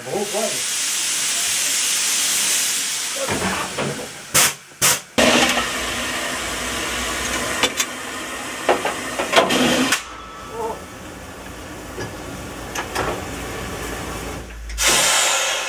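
Steam hissing from a Corpet-Louvet 0-4-0 tank steam locomotive, in several spells that start and stop suddenly, loudest in the first few seconds and again near the end.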